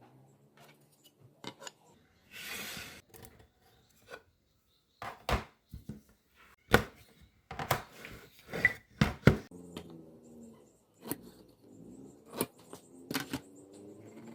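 Tools and workpieces being handled: a brief scraping rub, then a run of sharp knocks and clicks on wood and metal. A faint wavering pitched sound runs under the last few seconds.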